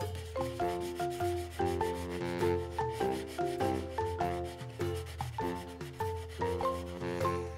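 A wax crayon scratching back and forth on paper as a picture is coloured in, with a light background melody of plucked, piano-like notes.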